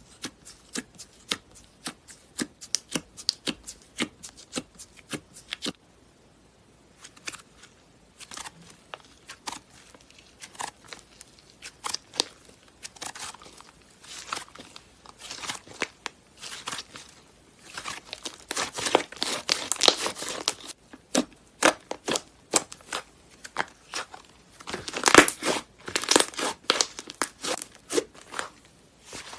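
Slime being worked by hand: a dense run of small wet clicks, pops and crackles, pausing briefly about six seconds in and growing louder and denser twice later on.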